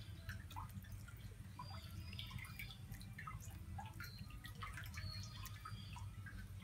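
Water dripping: many small, irregular plinks, several a second, over a steady low hum.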